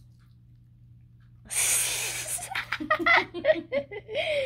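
A person laughing: a breathy burst of air about a second and a half in, then a run of short, pulsing laughs.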